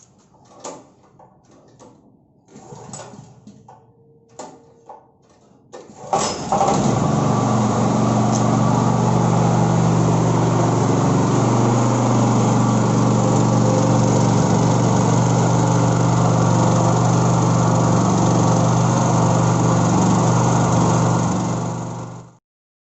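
A few light clicks and knocks, then the Elemax SH7600 generator's single-cylinder engine starts suddenly about six seconds in and runs loud and steady for about sixteen seconds, stopping shortly before the end.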